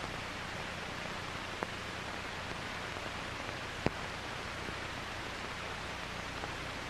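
Steady soundtrack hiss with a faint low hum and two soft clicks, about one and a half and four seconds in: the background noise of an old film's soundtrack with no narration over it.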